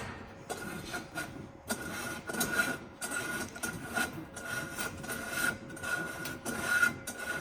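Irregular scraping and rubbing noises, several scrapes a second and uneven in strength, over a faint steady high tone.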